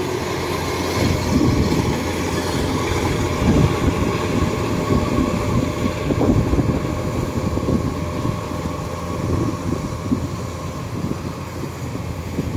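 Kubota DC-93 rice combine harvester running steadily as it cuts rice, its diesel engine and threshing machinery making a continuous mechanical noise that grows slightly quieter near the end as the machine moves away.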